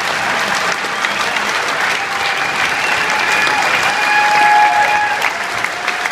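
Large audience applauding at a steady level, with a few voices calling out over the clapping.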